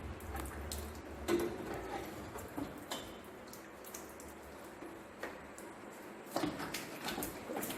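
Scattered light metallic clinks and knocks, a few at a time, of hand tools and car parts being handled while the car is stripped.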